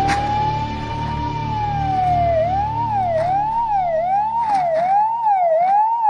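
Emergency-vehicle siren in a slow wail, rising and falling, that switches about two seconds in to a fast yelp of roughly two and a half cycles a second.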